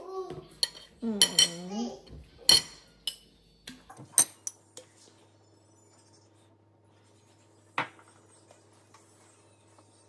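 Table knife and dishes clinking against a ceramic plate, with several sharp clinks in the first four seconds and one more near eight seconds. A voice is heard briefly in the first two seconds, and a faint steady hum sets in after about four seconds.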